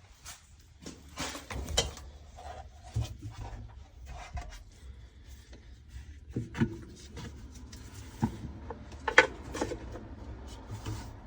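Irregular clicks, knocks and rubbing as an older Maytag top-load washer's drive pulley and transmission are turned by hand, with the sharpest knock about nine seconds in. Nothing is heard tumbling in the drum: the drum is not turning, the sign of a bad transmission.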